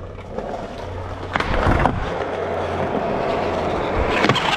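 Skateboard wheels rolling on a smooth concrete floor, with sharp clacks of the board about a second and a half in and again near the end.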